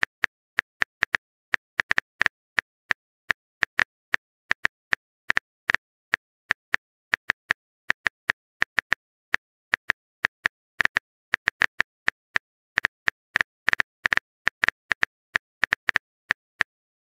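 Phone keyboard typing clicks: short, sharp key-tap sounds at an uneven pace of about three a second as a text message is typed out.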